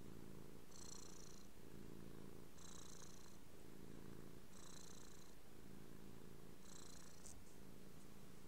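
Domestic cat purring steadily right at the microphone, the purr swelling in a regular cycle about every two seconds.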